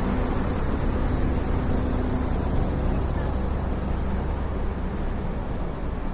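Steady low rumble of a large engine idling close by, most likely the parked tour coach, over general street traffic noise.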